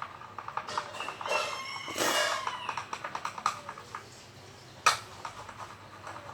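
Clear-glue slime being stirred with a stick as borax activator makes it clump: a run of quick wet squelching clicks, loudest around two seconds in, with a single sharp knock near five seconds.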